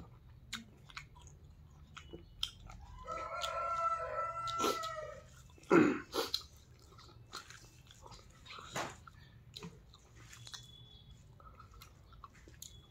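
Close-up chewing and lip-smacking of a person eating rice and roasted pork by hand, with scattered small wet clicks. A drawn-out pitched call sounds in the background for about two seconds, starting some three seconds in, and a short low vocal sound falling in pitch comes about six seconds in.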